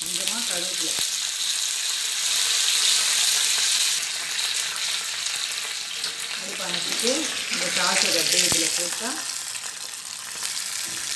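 Curry leaves and mustard seeds sizzling in hot oil in a small pan: the tempering (tadka) for a South Indian buttermilk curry. The sizzle starts suddenly as the leaves go in and carries on steadily.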